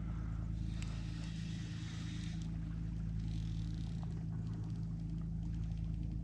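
Steady low drone of a motor running at an even pitch, likely a boat motor.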